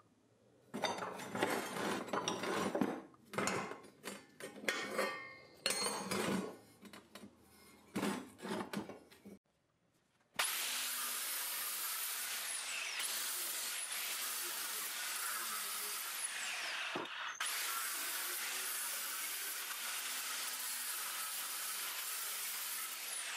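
An angle grinder with a cutting disc cuts through the rusty steel of an old reel mower's frame. The motor pitch drops and recovers several times as the disc bites. Before that, a run of short, irregular scraping and clattering bursts comes from the metal parts being worked.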